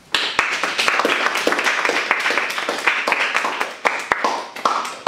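Audience applauding: dense clapping that thins out to scattered claps near the end.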